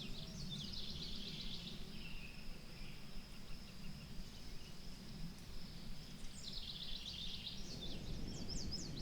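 A songbird singing rapid trills in two bursts, one near the start and a longer one near the end, over a faint low steady rumble.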